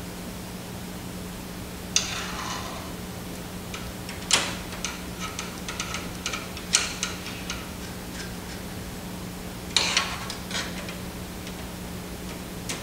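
Sharp metal clicks and short rattles of a screwdriver and screws against a printer's sheet-metal frame as the capping-station screws go back in: four louder clicks a couple of seconds apart, with lighter ticking between them, over a steady low hum.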